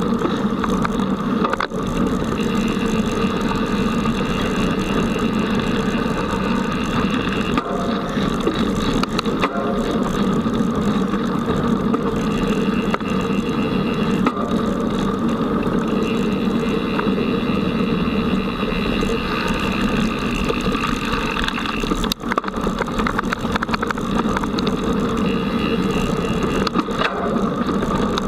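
Child's mountain bike riding fast over a dirt forest trail, heard from a camera fixed to the bike: a steady, loud rumble of tyres and rattling of the frame and mount.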